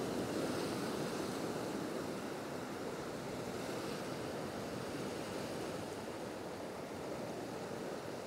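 Sea waves washing against a rocky shore: a steady rush of surf that eases slightly over the few seconds.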